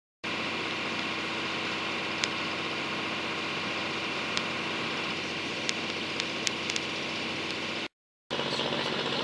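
A tour boat's engine running steadily, a constant hum with a few sharp ticks in the middle. The sound breaks off for a moment near the end, then the engine resumes.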